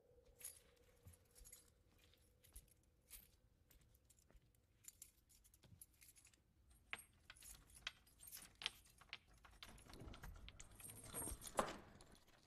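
Faint, irregular metallic clinking and jingling, a scatter of small sharp clicks. They grow busier in the second half, with the loudest clink near the end.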